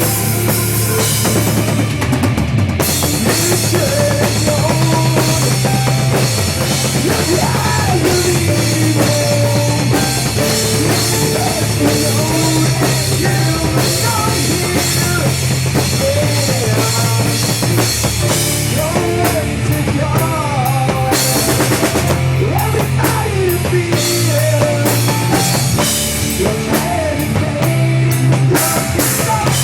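Rock band playing a song, with a steady drum-kit beat and bass under a wandering lead melody.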